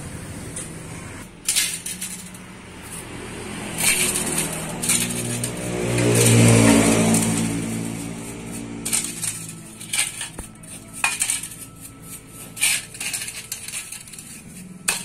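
Metal clinking and scraping as rusty motorcycle steering-head bearing races are scrubbed with a brush in a metal bowl. About four seconds in, a motor vehicle engine swells up and fades away over a few seconds; it is the loudest sound.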